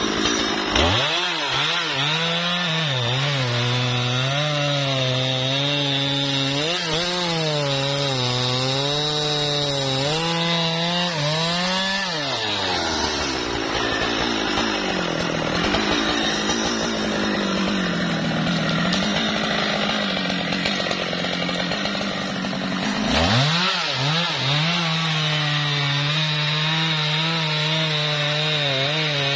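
Husqvarna 395 XP, a large 94 cc two-stroke chainsaw, cutting into the tree, its engine pitch wavering as the chain bites under load. About 12 s in the pitch falls away and the sound turns rougher for a while; about 23 s in the saw revs back up and cuts again.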